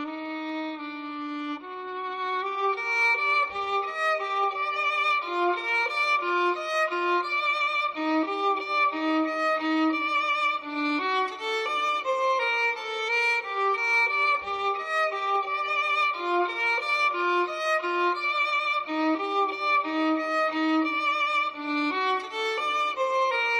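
Violin playing a flowing melody with vibrato on the held notes: the violin theme music from a telenovela soundtrack.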